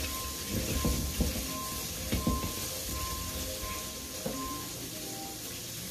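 Steel wok being wiped with a cloth and shifted on a gas stove's grate: a few clunks and scrapes of metal on metal, the loudest about one and two seconds in, over a steady hiss.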